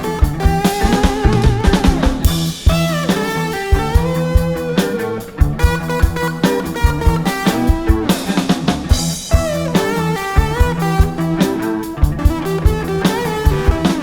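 Rock music with a drum kit and electric guitar: a steady beat with snare and bass drum hits and sliding guitar lines.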